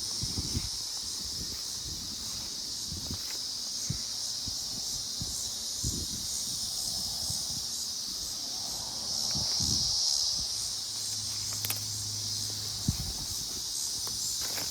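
A steady high-pitched chorus of insects with a faint pulsing rhythm, joined by a few soft low thuds.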